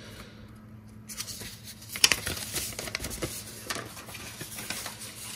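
A folded paper instruction leaflet being handled and opened out, crinkling and rustling with small crackles, the sharpest about two seconds in.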